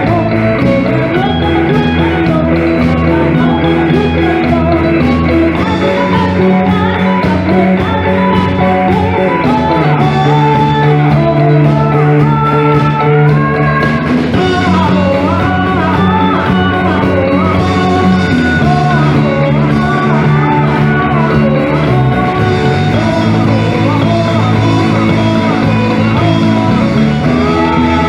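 A band playing a pop-rock song, with guitar and held bass notes under a singing voice carrying the melody.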